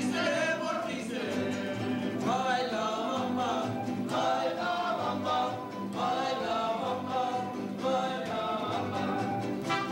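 Mariachi band playing and singing: voices singing together in phrases over strummed guitars, a guitarrón and violins.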